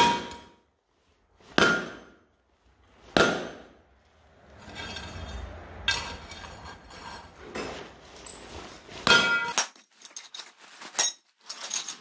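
A 10-pound sledgehammer strikes a steel plate lying on a dirt floor three times, about a second and a half apart, each blow with a brief metallic ring, hammering the plate into a curve. Scraping and lighter clanks follow as the plate is shifted by hand, then one more ringing clank and a run of small clinks near the end.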